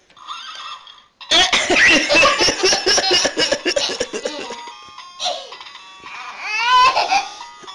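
A toddler laughing hard in a long run of rapid giggles, then a rising squeal of laughter near the end. A toy's simple beeping electronic tune plays under it.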